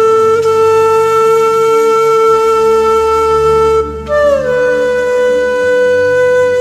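Background music: a wind instrument plays long held notes, the first held for about four seconds, the second starting higher and sliding down slightly before holding, over a quieter low accompaniment.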